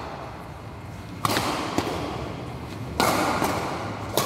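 Badminton racket strikes on a shuttlecock during a rally: three sharp hits, about a second in, at three seconds and near the end, each echoing in a large hall, with lighter taps between.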